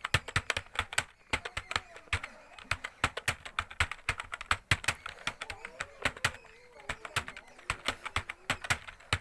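Fast touch-typing on a computer keyboard: a rapid, uneven stream of keystrokes, several a second, as a passage is typed in a typing speed test.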